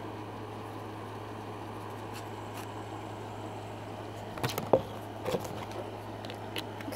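A plastic glue bottle being handled: a few short clicks and knocks starting about halfway through, the sharpest just before five seconds in, over a steady low background hum.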